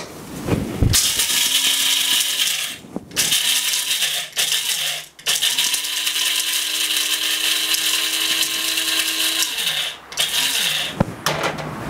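Electric blade coffee grinder grinding toasted coriander seeds, black pepper and cloves in about five pulses, whole spices rattling against the spinning blade. The motor hum rises as it spins up and falls as it stops each time, and the longest run lasts about four seconds.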